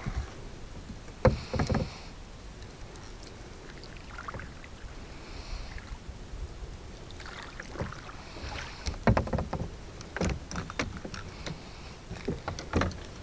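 Irregular knocks and bumps on a plastic fishing kayak's hull and deck, in small clusters about a second in, around nine to ten seconds in and near the end, over a low steady background of open water.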